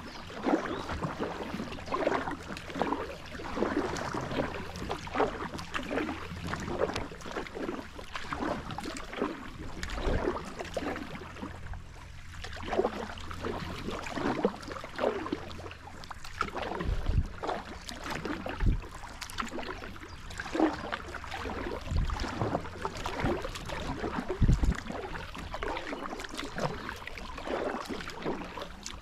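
Kayak paddle strokes in calm water: the blades dipping, pulling and dripping in a steady run of small splashes, with a few low thumps and a faint low hum in the first half.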